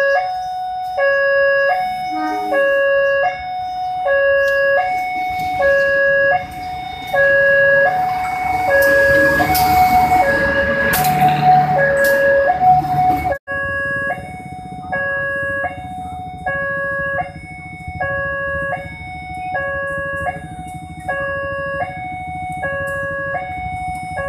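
Railway level-crossing warning alarm: an electronic two-tone signal alternating between a low and a high tone, one pair about every second. In the first half the rumble of a passing passenger train builds under it. After an abrupt break about halfway, the alarm carries on for another approaching train.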